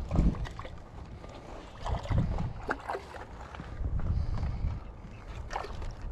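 Wind rumbling on an action-camera microphone, with scattered clicks and light splashing as a hooked rainbow trout is reeled in on a spinning rod.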